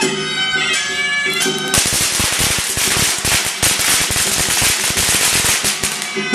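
Reed-pipe music on a Chinese shawm (suona) plays, then a string of firecrackers goes off a little under two seconds in. The crackers make a rapid, continuous crackle of pops for about four and a half seconds and drown out the music, which comes back at the very end.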